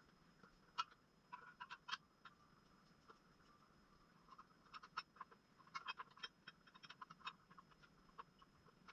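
Faint, irregular crackling and ticking: scattered small clicks, some in quick clusters, over near silence.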